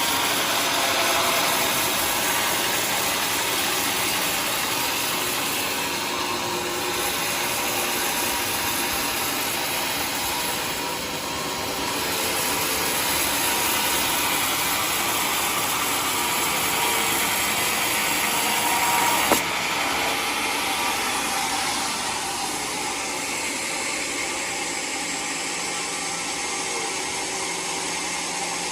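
Homemade sawmill running steadily as its blade cuts through a waru log. About two-thirds of the way through there is a sharp click, and after it the high hiss drops away.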